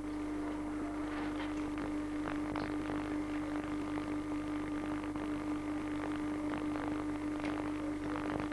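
A steady hum at one unchanging pitch, under faint crackling with scattered small ticks.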